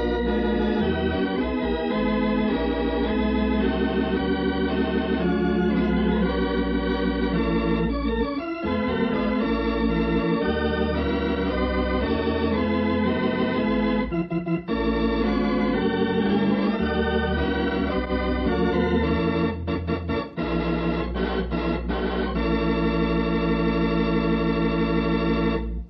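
Organ music playing sustained chords as a radio serial's closing theme.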